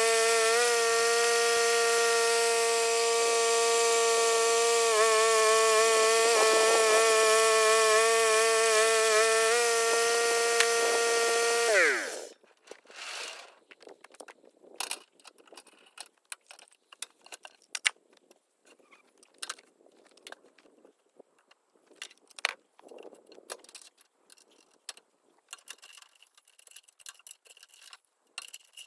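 Bandsaw mill engine running steadily while the blade cuts a red cedar log. It winds down and stops about twelve seconds in. After that there are only scattered light clicks and knocks.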